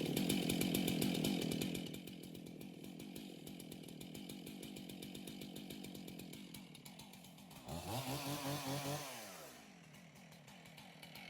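Battery chainsaw fitted with a ripping chain, cutting into a log. It is loud for the first two seconds, then runs more quietly, and near the end speeds up briefly before winding down. The cut starts poorly because the ripping chain is grabbing too much.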